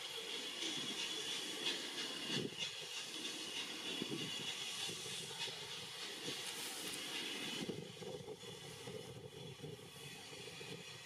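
Steam locomotive with steam hissing, which drops away about eight seconds in.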